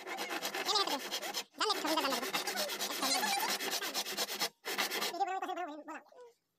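A hand woodworking tool worked along a wooden plank in three long rasping strokes, with short pauses between them.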